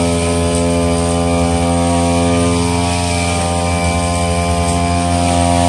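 Sumo backpack brush cutter's two-stroke engine running at a steady high speed while trimming grass, a constant drone with no change in pitch.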